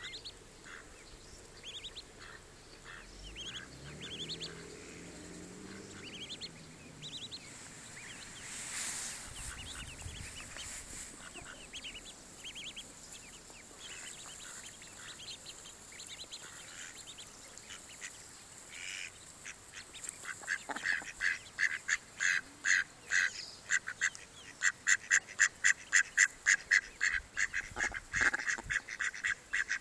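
Mallard ducklings calling, with scattered short high peeps at first. About two-thirds of the way in the calls become a fast, louder run of several a second.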